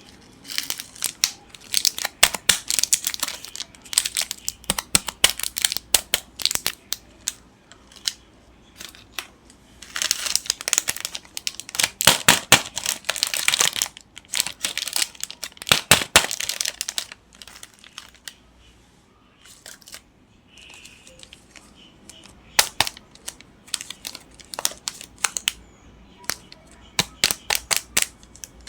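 Candy and chocolate wrappers being crinkled and torn open. The dense crackling comes in three long bouts with quieter stretches between them.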